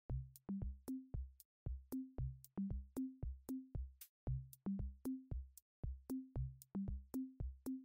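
Electronic intro music with a drum-machine beat: low kick thumps, short bass notes stepping between a few pitches, and sharp high ticks in a steady rhythm.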